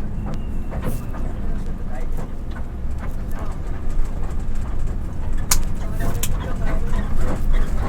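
Passenger motorcycle tricycle's engine running with a steady low rumble, with indistinct voices and a few sharp clicks over it.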